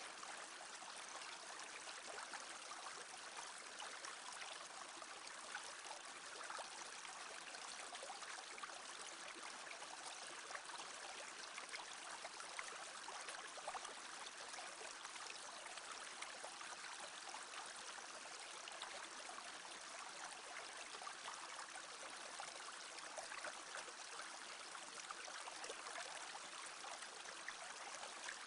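A small brook babbling steadily: an even rush of flowing water flecked with little trickles and splashes.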